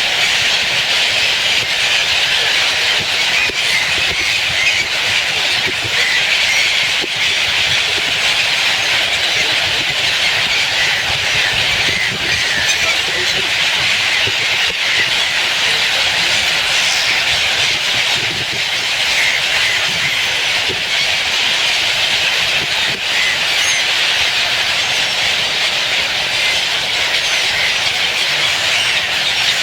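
Dense, steady chatter of a large flock of birds, countless calls merging into one continuous wall of chirping.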